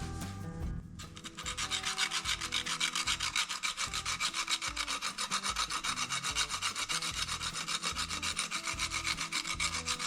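Spindle gouge being honed by hand: a hone rubbed rapidly back and forth on the steel edge, an even rasping of many strokes a second that starts about a second in.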